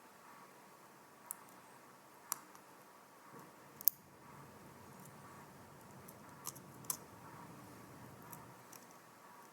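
Faint handling of a small wristwatch and its tiny parts and tools: a handful of short, sharp clicks and taps, the loudest about four seconds in, over a soft rustle in the middle.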